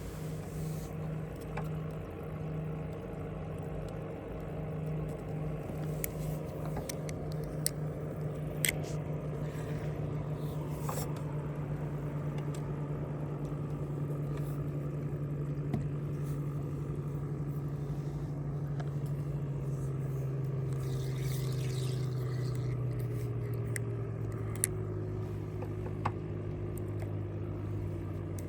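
An engine running steadily, its pitch sinking slowly over the last several seconds as it slows, with a few light clicks and knocks on top.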